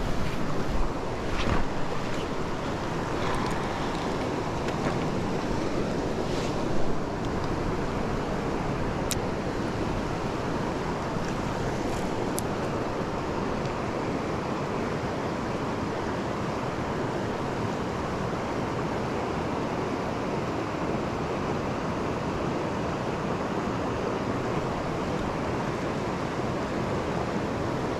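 Steady rushing of a shallow river riffle, water running over rocks. A few light clicks and knocks come through in the first dozen seconds.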